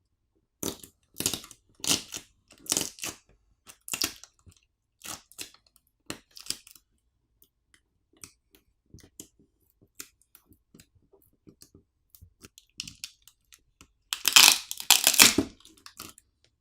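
Samsung Galaxy S24 FE battery being pulled off its adhesive with its plastic pull pouch: a run of short crackling, tearing noises, then faint clicks, then a louder, longer tear about fourteen seconds in.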